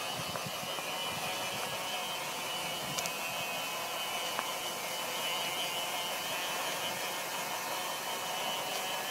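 Model steam locomotive running along its track: a steady whirring hiss with a few faint clicks.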